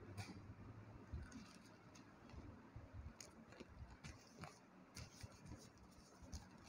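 Near silence: room tone with a few faint, scattered clicks and small handling noises.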